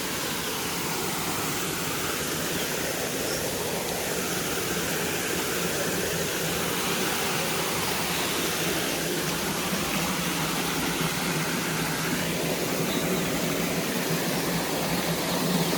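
Bhagsu Waterfall: the steady, even rush of falling water.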